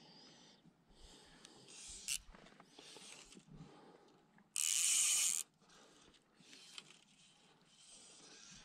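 Fly line being stripped in by hand in short pulls, each a soft high zip, with one louder burst of the fly reel's clicking ratchet drag a little after halfway.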